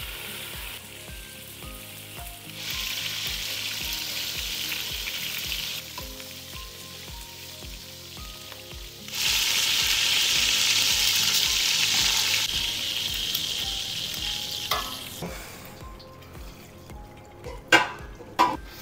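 Chunks of wild boar searing in hot olive oil in a pot, sizzling steadily with two louder stretches. Near the end come a few sharp knocks of metal utensils and pots.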